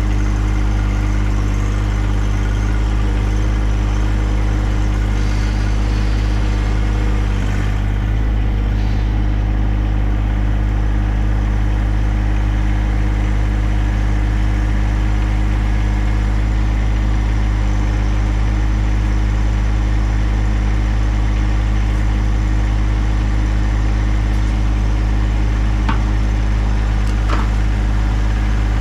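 An engine running steadily at a constant speed, with a brief slight dip about seven seconds in.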